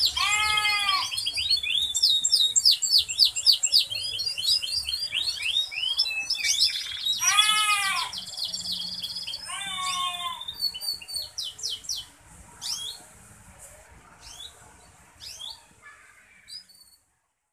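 Canaries singing: fast, rapidly repeated trilled phrases, broken three times by lower arching whistled notes. After about twelve seconds the song thins out to scattered short chirps.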